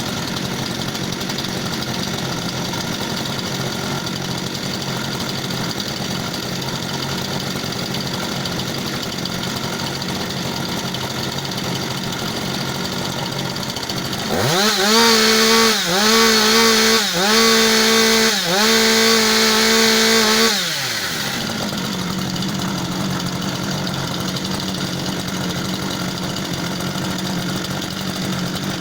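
Two-stroke chainsaw idling, then revved to full throttle about halfway through for some six seconds with three brief dips in speed, before dropping back to idle.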